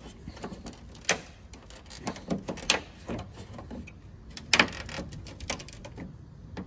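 Hard plastic clicks and knocks from the BMW X5 E70 kidney grille assembly and its retaining clips, pushed in and up by hand to release the grille; a few separate clicks, the loudest about four and a half seconds in.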